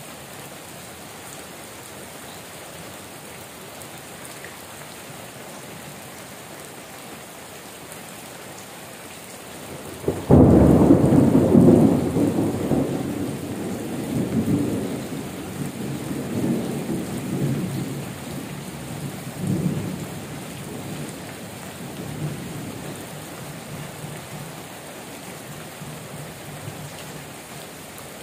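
Steady heavy rain. About ten seconds in, a thunderclap breaks in suddenly as the loudest sound, then rumbles on in several swells and dies away over the next ten seconds or so.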